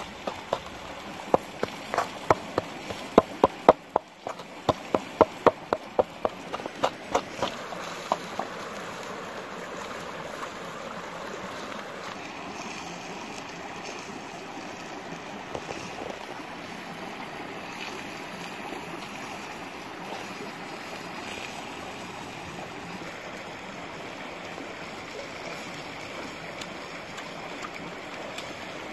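A pestle pounding chili paste in a coconut-shell mortar, in quick rhythmic strikes that stop about eight seconds in. Under it and afterwards, a shallow stream flows steadily over rocks.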